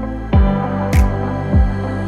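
Background music with a steady beat: a deep kick drum that drops in pitch about every 0.6 s, with a sharp clap or snare on every second beat, over sustained chords.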